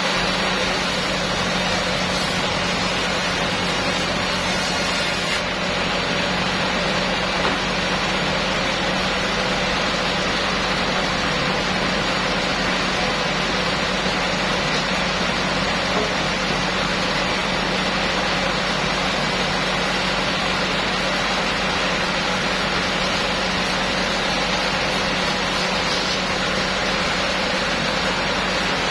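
Sawmill machinery running steadily: a constant hum under an even rushing noise, with no starts or stops.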